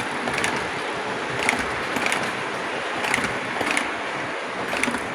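Lionel O-gauge Alco PA diesel model train and passenger cars rolling on three-rail track: a steady rolling rumble with sharp clicks every half second or so, unevenly spaced, as the wheels cross the rail joints.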